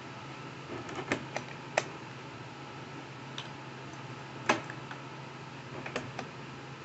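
A few light clicks and knocks, scattered irregularly, over a steady low hum.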